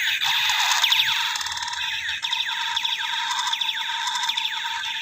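Battery-powered toy AK-47 gun playing its electronic firing sound effect: a buzzing rattle over steady electronic tones, with falling 'pew' sweeps repeating through it.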